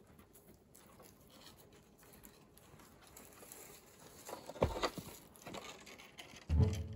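Faint rustling and pattering that grows louder, with a couple of sharp knocks about two-thirds of the way in. Background music with low bowed-string notes comes in near the end.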